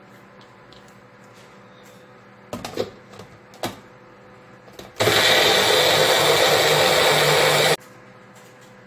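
Magic Bullet blender: a few plastic knocks as the cup is set on its base, then the motor runs loud and steady for nearly three seconds, blending guacamole, and cuts off suddenly.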